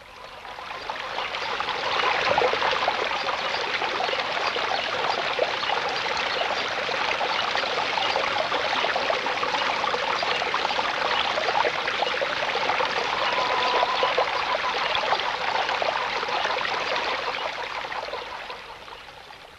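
Running water of a small stream trickling and splashing over stones, a steady rush that fades in over the first couple of seconds and fades out near the end.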